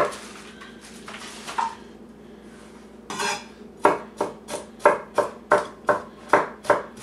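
Kitchen knife chopping celery on a cutting board: a few scattered knocks, then from about four seconds in a steady run of chops, about three a second.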